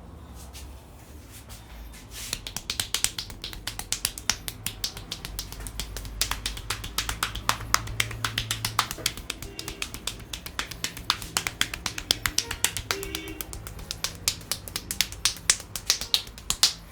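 Rapid, irregular sharp snaps and slaps from a masseur's hands working on a head, several a second. They start about two seconds in and stop just before the end.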